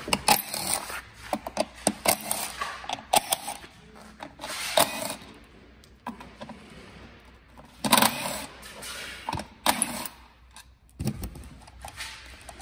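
Cordless power driver running in several short bursts, backing out the fixing bolts that hold the battery modules together.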